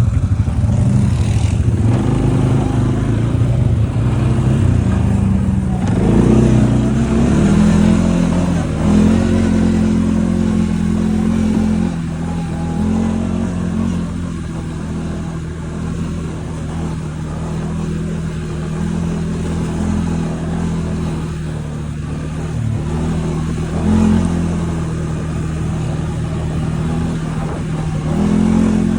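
ATV (quad bike) engine running under way, revving up and down, with a steadier lower drone in the second half.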